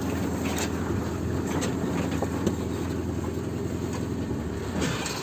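An engine running steadily at an even speed, with its hum dying away near the end.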